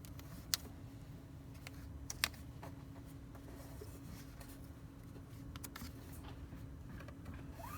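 Vinyl sticker being handled on a car door: faint rubbing and a couple of sharp clicks over a steady low hum.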